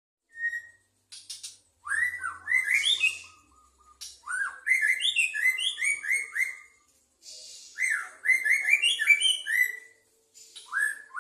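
Male white-rumped shama singing in a highly excited state: three long phrases of fast, rising whistled notes mixed with harsh rasping sounds, with short pauses between them and a short fourth phrase near the end.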